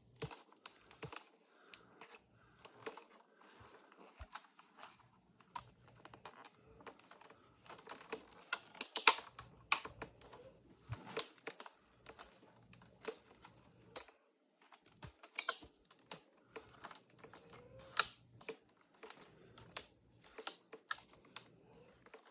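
Irregular plastic clicks and taps from a white polycarbonate MacBook being handled and pressed on as a part is worked into place.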